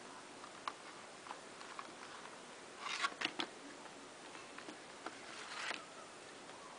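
Clear plastic blister pack crackling and clicking as it is handled and pulled away from its cardboard backing, with a short burst of crinkling about three seconds in and another a little before the end.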